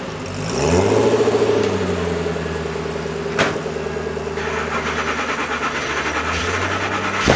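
Koenigsegg CCXR Edition's twin-supercharged V8 blipped once, rising and falling back to a steady idle, then pulling slowly away with added rushing noise. A single sharp click comes a little over three seconds in.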